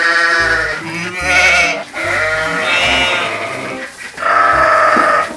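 Bleating farm animals: about four loud, wavering calls in a row, the third the longest. Low backing music runs underneath.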